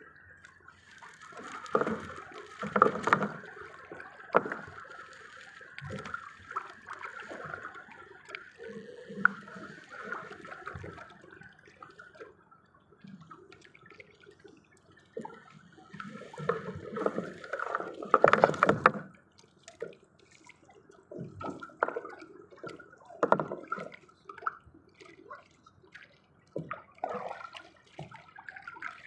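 Water splashing and sloshing in irregular bursts, with the loudest splashes about three seconds in and again a little past the middle.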